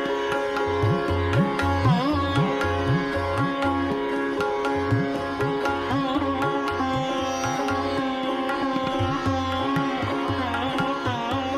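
Indian classical-style instrumental background music: a plucked string melody over a steady drone, with hand-drum strokes at a few per second whose low notes bend upward in pitch, as on a tabla.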